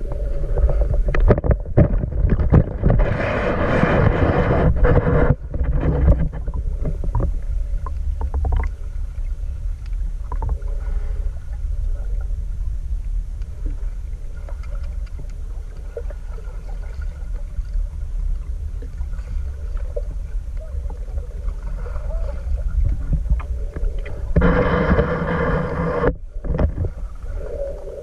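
Muffled underwater rumble and sloshing of water picked up by a GoPro held under water. There are two louder stretches of churning water noise, one a few seconds in and one near the end.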